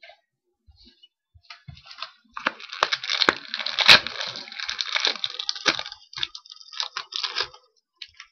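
Crinkling and crackling of a trading-card pack wrapper being handled and torn open. The noise is dense and full of sharp crackles, with one loud crack about four seconds in.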